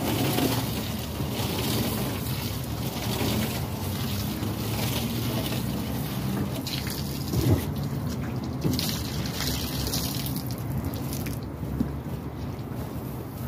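Water running from a hose, over steady wind noise and a low steady hum, with a couple of brief knocks in the middle.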